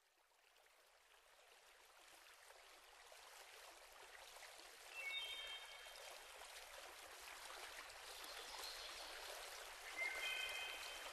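Faint, steady rushing like a flowing stream, fading in and growing louder, with two short high chirps about five seconds and ten seconds in.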